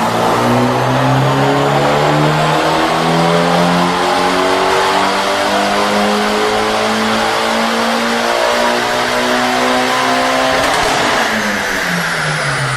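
A tuned performance car's engine running hard at high revs. Its pitch climbs in small steps for about ten seconds, then drops away about eleven seconds in.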